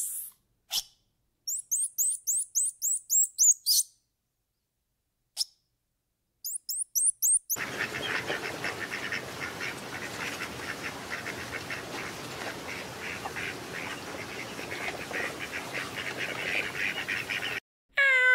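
Birds calling: two short runs of rapid, high, thin chirps, then a dense chorus of many birds calling at once for about ten seconds that cuts off just before the end.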